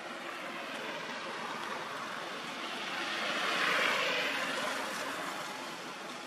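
A vehicle passing on the road, its rushing noise swelling to a peak about halfway through and then fading away.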